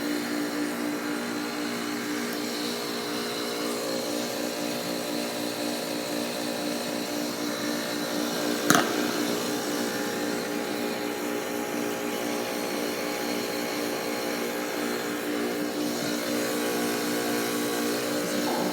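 Outdoor unit of a 2015 Bryant Legacy heat pump running steadily, a compressor hum with no fan noise, which the owner suspects is a defrost cycle or else a burnt-out outdoor fan. A single sharp click about halfway through.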